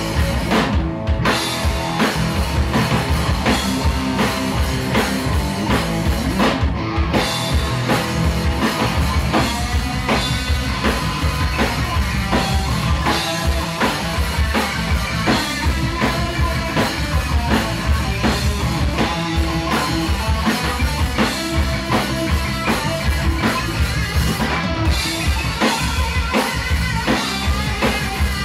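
Live rock band playing: distorted electric guitar, electric bass and a Tama drum kit driving a steady beat.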